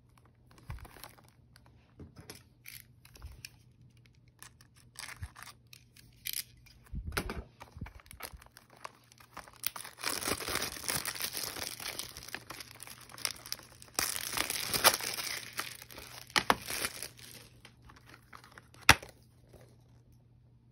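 Plastic shrink wrap on a Blu-ray case being picked at, torn and peeled off, with scattered crackles at first and dense tearing and crinkling through the middle. Near the end comes a single sharp click as the plastic case snaps open.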